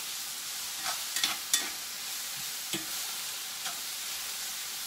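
Sliced onions and mushrooms sizzling steadily in a hot cast-iron skillet, with a few sharp clicks and scrapes of a utensil against the pan as they are stirred, the loudest about a second and a half in.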